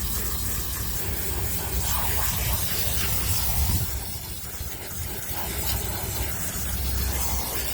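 Water spraying steadily onto soaped dog bedding as it is washed, a continuous hiss that eases for a moment about four seconds in.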